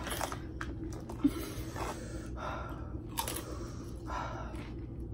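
A person breathing hard through the mouth, with short gasping breaths about once a second, from the burn of a ghost pepper chip.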